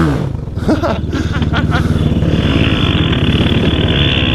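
Quad (ATV) engine running at a fairly steady throttle, with water splashing from the tyres in the first second or two as it crosses shallow water at the edge of a concrete ditch.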